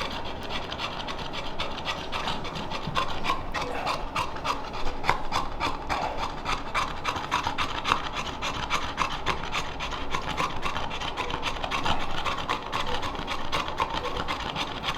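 Hands rubbing and kneading a Victorian bulldog's coat during deep muscle work, a dense run of quick rasping strokes, with the bulldog panting.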